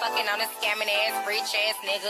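Background hip-hop music with a sung vocal line whose pitch wavers and bends over a steady backing.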